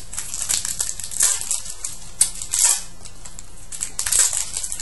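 Wrapper of a 2013-14 SPx hockey card pack rustling and crinkling as it is torn open, in a few rustling bursts with a sharp click about two seconds in.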